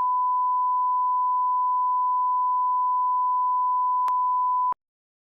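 Broadcast line-up test tone: a steady, unbroken 1 kHz sine tone played over colour bars. There is a brief click shortly before the tone cuts off abruptly near the end.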